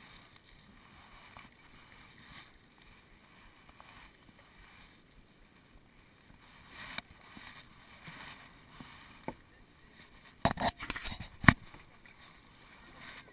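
Kayak paddle strokes in calm water: soft, faint swishes and drips as the blades dip. Near the end come a few sharp knocks, one much louder than the rest.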